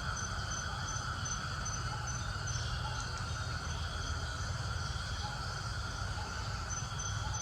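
Insects chirping outdoors: a high, even chirp repeating about two or three times a second, pausing in the middle and resuming near the end, over a steady insect drone and a steady low rumble.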